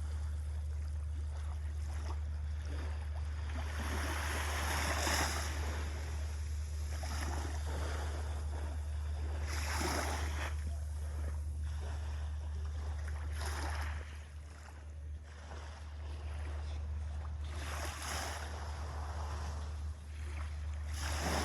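Small sea waves washing onto a sandy beach, each one swelling up and falling back about every four to five seconds, over a steady low rumble.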